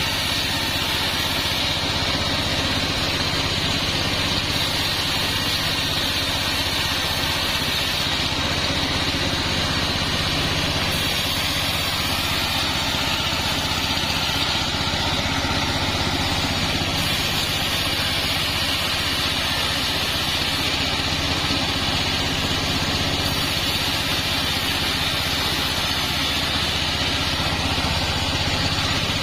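Sawmill machinery running steadily: a constant engine drone with a hiss above it that does not change.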